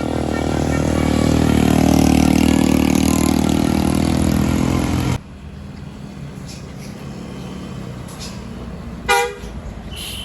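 A bus passing close, its engine running loud, with a multi-tone telolet horn sounding. The sound swells, then cuts off suddenly about five seconds in. Quieter road traffic follows, with one short horn toot about nine seconds in.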